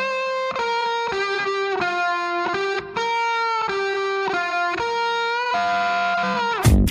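Background music: a single melody line of held notes, changing about twice a second, with no beat under it, until the drums come back in just before the end.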